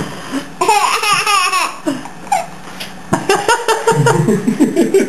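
Baby laughing hard: a long high, wavering laugh about half a second in, then a sharp mouth pop about three seconds in followed by a run of short laughing bursts.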